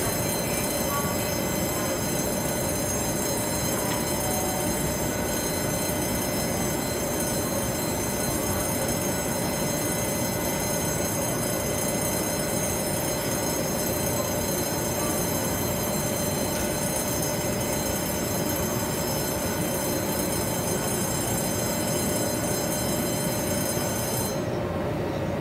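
Taiwan Railways E300-series electric locomotive standing still at a platform, its equipment running with a steady hum and a steady high-pitched whine. The whine stops about a second before the end.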